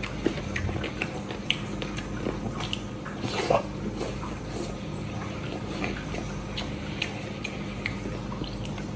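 Close-up chewing and lip smacking as a man eats meat off a teriyaki pork chop bone: scattered wet clicks and smacks, with a louder bite about three and a half seconds in.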